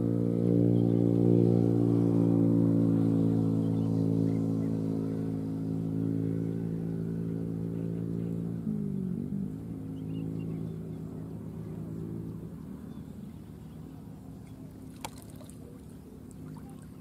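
A small engine drones steadily and fades away, with a brief dip in pitch about nine seconds in. A single sharp click sounds near the end.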